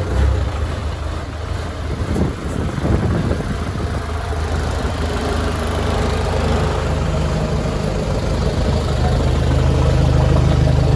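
Mercedes engine of a converted GAZ-63 off-road truck idling steadily, growing a little louder near the end.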